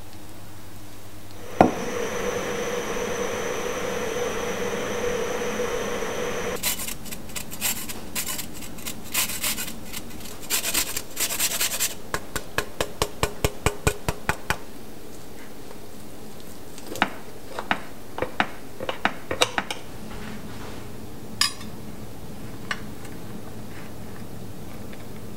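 Citrus zest being grated on a rasp grater: a sharp click, then several seconds of steady scraping, then rapid rasping strokes that slow to about four a second. After that, a metal cake server scrapes and clicks against a ceramic plate as a slice is cut, with one short metallic ring near the end.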